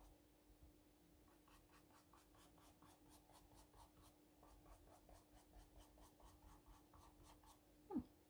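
Faint, quick strokes of a fine paintbrush dabbing black paint onto a shoe sole, about four or five strokes a second. Near the end a brief, louder sound slides quickly down in pitch.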